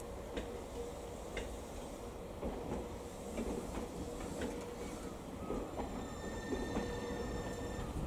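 Rail depot background sound: a steady low hum under scattered faint clicks and knocks, with a high, multi-toned whine for about two seconds near the end.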